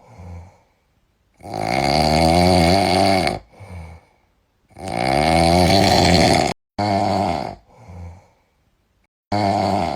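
A sleeping cat snoring: four loud snores a few seconds apart, the two longer ones rising in pitch, each followed by a short, softer breath out.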